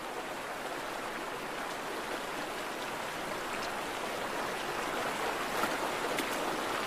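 Salmon stream running steadily over rocks, with a few faint ticks near the end.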